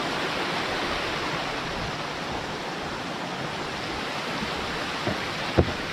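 Small waterfall: a steady rush of falling water, with a few short knocks near the end.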